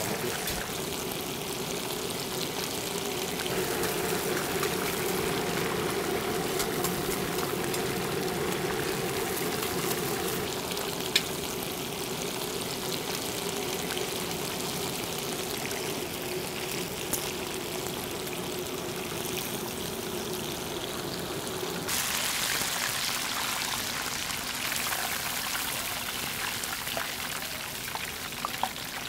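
Battered chicken deep-frying in large pots of hot oil, the oil sizzling and crackling steadily. A steady low hum runs under it for much of the time and drops away a little past two-thirds through.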